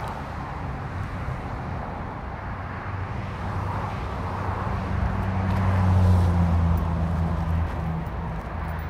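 A motor vehicle passing: a low engine hum builds up, is loudest about six seconds in, then fades, over a steady background hiss.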